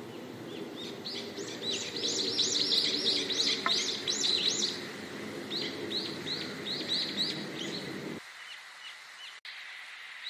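Songbirds chirping: fast runs of short, high, arching notes, densest in the first half and slower and sparser later. A low background rumble underneath cuts off suddenly about eight seconds in.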